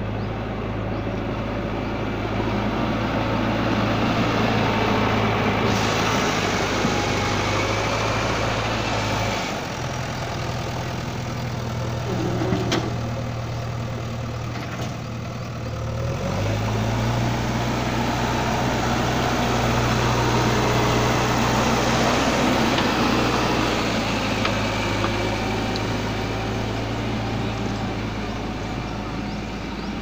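Diesel engine of a JCB 3DX backhoe loader running steadily under working load while it spreads and levels loose soil. The low engine hum shifts abruptly twice, about a third of the way in and about halfway through.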